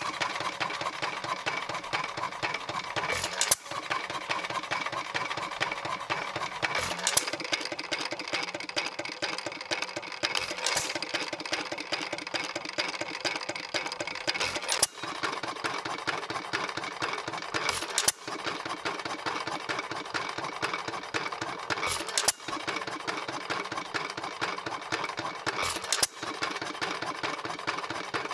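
1 1/2 HP Worthington hit-and-miss engine running, a steady fast mechanical clatter with a sharp loud bang every three to four seconds.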